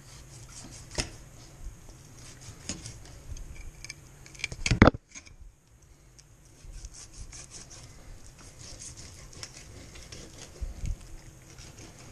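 Fillet knife cutting through a zander on a wooden cutting board: repeated small scraping and clicking cuts, with one loud thump just before five seconds in.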